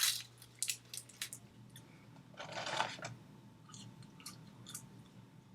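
A person chewing fast food close to the microphone: wet mouth clicks and crunching, with one longer, louder crunch about two and a half seconds in.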